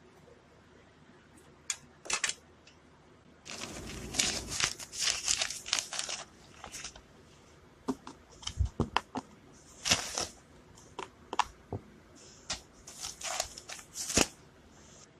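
Handling noises: irregular rustling and crinkling with scattered sharp clicks and knocks as small objects are moved about, with the longest spell of rustling a few seconds in.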